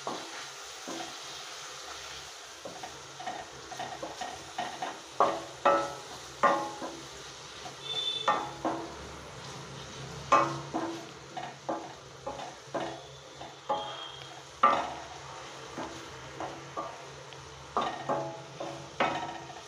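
A spoon stirring and scraping onion-tomato masala around a stainless steel pan, with irregular knocks against the pan. The frying mixture sizzles faintly underneath as the spice powders are mixed in.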